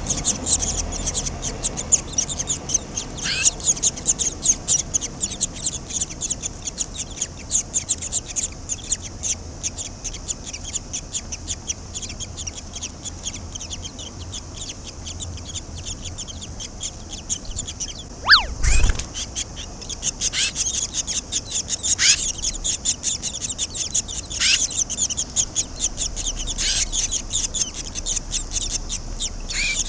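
Barn swallow nestlings chattering rapidly and high-pitched without a break, with several downward-sliding calls over it. About eighteen seconds in comes a louder sliding call together with a brief low thump.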